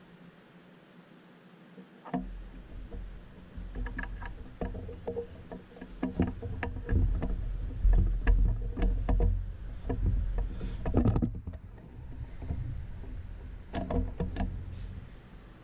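Irregular clicks and knocks of small parts being handled and fitted on a BMW ZF five-speed transmission case, starting about two seconds in, over a low rumble.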